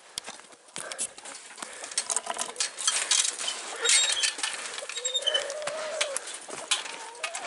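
Hens clucking, with one drawn-out call that rises and falls about two-thirds of the way in, over footsteps on dry dirt and a few light clicks.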